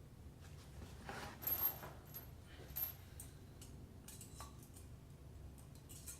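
Small metal faucet parts clinking and rattling as they are handled and unpacked: a few short clinks with a bright ring, the loudest about a second and a half in.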